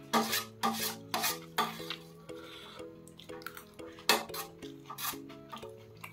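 A metal spoon scraping and clinking against a stainless steel plate in a run of short strokes, loudest near the start and about four seconds in. Soft background music with a simple repeating melody plays underneath.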